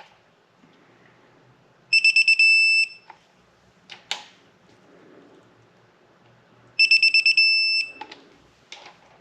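Digital torque wrench beeping as camshaft cap bolts reach the set torque of 18.1 foot-pounds: twice, a run of quick high beeps running into a steady beep, about five seconds apart, with a few clicks of the wrench and socket on the bolts in between.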